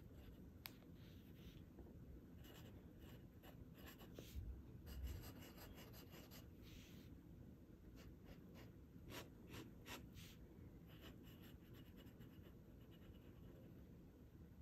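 Faint scratching of a glass dip pen nib on thin 52 gsm Tomoe River paper, in short scattered strokes as it writes letters and draws loops and lines.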